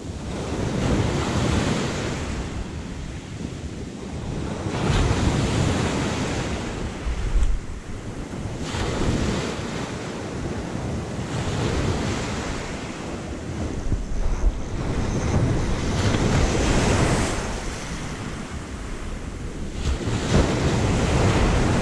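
Sea waves washing onto the shore, each surge swelling and fading every few seconds, with wind buffeting the microphone.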